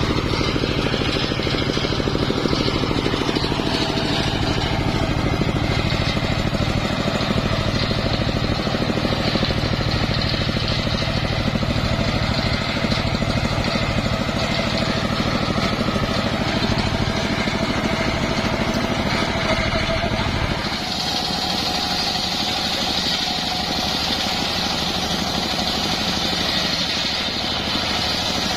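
Homemade engine-driven circular saw running steadily with a low engine rumble. About two-thirds of the way through, the low rumble drops away and a higher hiss rises over it.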